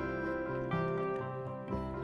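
Instrumental background music: layered, sustained notes that change roughly once a second.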